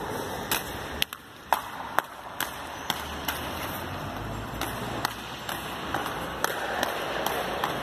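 A child's roller skates rolling and clacking on a wooden floor: a string of sharp, uneven knocks over a steady rolling rumble that grows heavier about halfway through.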